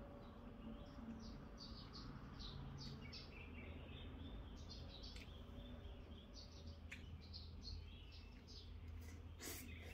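Faint chirping of small birds: many short, high calls repeated throughout, over a low steady hum.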